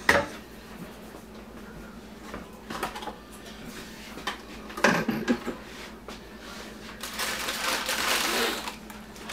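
Kitchen handling noises: scattered clicks and knocks of things being picked up and set down at a counter, the loudest about five seconds in, then about two seconds of hissing, rustling noise near the end.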